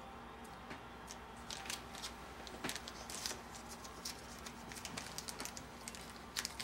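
Faint crinkling and small sharp clicks of a small object being handled between the fingers, irregular and starting about a second and a half in, over quiet room tone.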